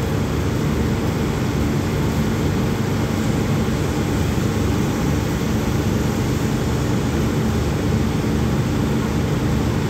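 Diesel engines of a standing passenger train running at idle: a steady, unchanging rumble with a faint hum.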